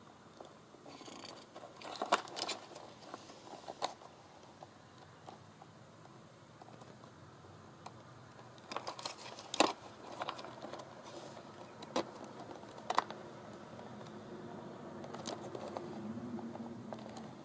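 Scattered clicks, taps and a few sharper knocks as a scooter's electronic controller board is handled and turned over, with light rustling in between.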